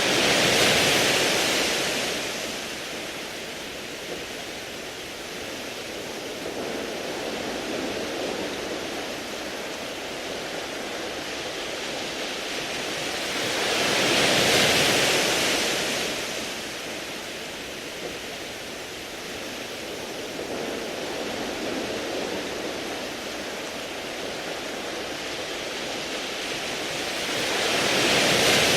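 Sea waves washing up and draining back over a beach of smooth round pebbles. A steady hiss swells into a louder wash about every fourteen seconds, three times.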